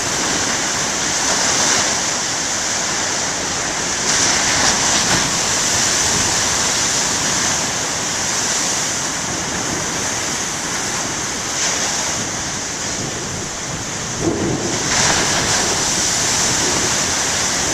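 Big ocean waves breaking on the shore: a continuous loud rush of surf, swelling as a wave crashes about four seconds in and again near the end.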